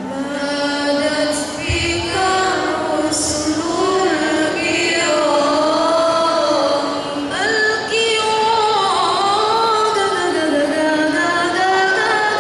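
A girl singing a solo maulid song into a microphone, one flowing melody with gliding, ornamented notes and long held tones. There is a single low knock about two seconds in.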